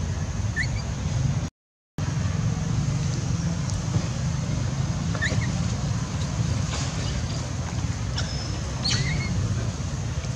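Steady low rumble of outdoor background noise. A few short, high, rising chirps come about half a second in, near the middle and near the end. The sound cuts out completely for about half a second near the start.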